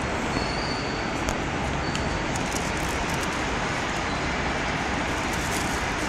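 Steady background din of a large exhibition hall, an even rumble and hiss with a few faint ticks.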